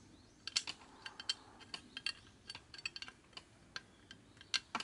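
Light, irregular clicks and taps of metal and plastic parts as the two halves of an airsoft electric gun's gearbox shell are test-fitted together over a new spring guide.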